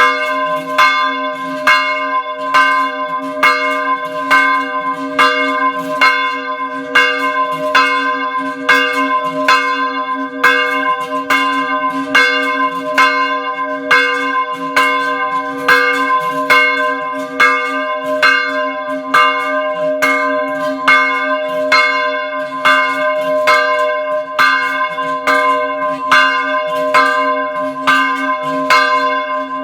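Small church bells rung in rapid, even strokes, two or three a second, each stroke's ring overlapping the next over a steady low hum.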